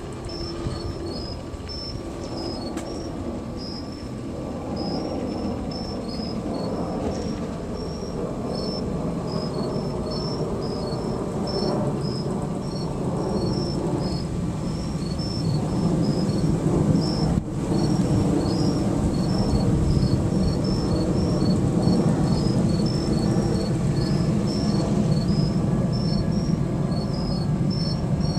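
Crickets chirping steadily over a low machinery rumble that builds up through the first half and then stays loud.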